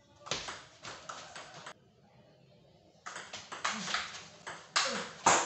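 Table tennis rally: the celluloid ball clicks sharply off the paddles and the table in quick succession. It stops abruptly about a second and a half in, and a second rally of clicks starts about a second later.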